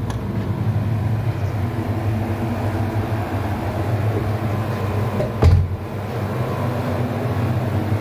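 Zanussi ZPAC9002 portable heat pump air conditioner running in heating mode, fan on full speed and compressor running, giving a steady hum. A single knock about five and a half seconds in.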